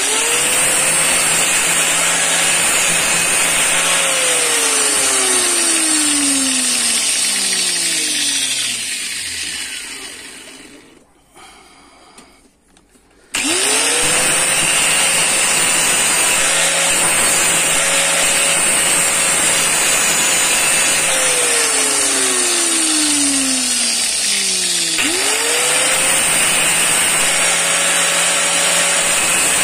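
Electric angle grinder with a thin abrasive disc, used to grind a small steel piece held against the disc's edge. It is switched on three times. Each time its whine rises quickly to a steady pitch, and twice it is switched off and winds down with a falling pitch, with a short near-silent pause after the first wind-down.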